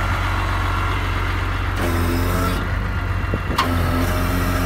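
DAF XF105.410 truck's six-cylinder diesel idling steadily with a low, even drone.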